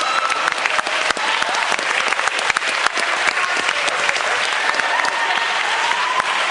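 A crowd applauding, with many hands clapping densely and a few voices calling out over it.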